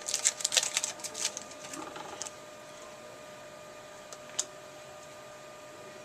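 Trading-card pack wrappers crinkling and crackling as packs are torn open and the cards handled, for about two seconds, then a single sharp click. A faint steady hum runs underneath.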